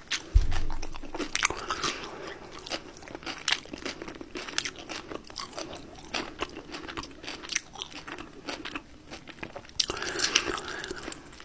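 Close-miked chewing of a KFC Double Down's fried chicken fillets, the breading crunching and crackling in irregular bites, with a dull thump about half a second in.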